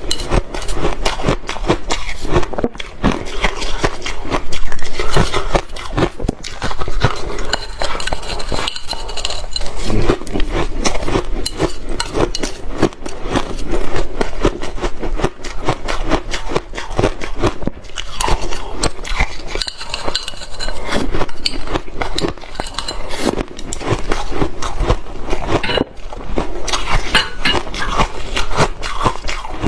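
Shaved ice being crunched and scraped with chopsticks, close to the microphone: a continuous stream of crisp crackles and clicks, with chopsticks clinking against the ice and its dish.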